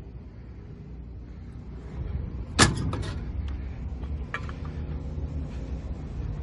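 A sheet-metal side access door on a Caterpillar 320BL excavator slams shut about two and a half seconds in, with a few quick rattling clicks right after and another click a couple of seconds later. A low steady rumble runs underneath.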